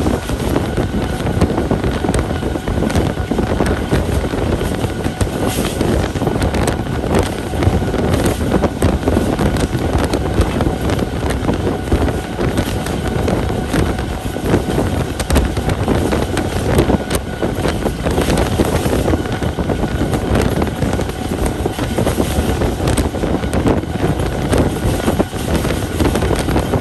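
Passenger train running along the track, heard from an open coach window: a steady rumble of wheels on the rails with scattered clicks, and wind buffeting the microphone.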